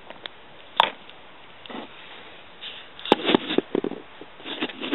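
Scissors and cardboard handled on a wooden worktable: one sharp tap about a second in, then a run of quick small knocks and taps in the last two seconds.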